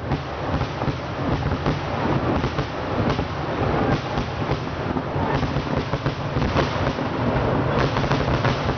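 A continuous barrage of fireworks going off, so many bangs and cracks per second that they merge into a steady rumble with crackling on top.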